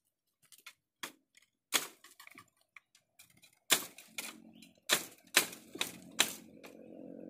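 Dry bamboo twigs and stems cracking and snapping in an irregular run of sharp clicks as they are pulled and broken by hand. From about four seconds in, a low steady hum sets in underneath.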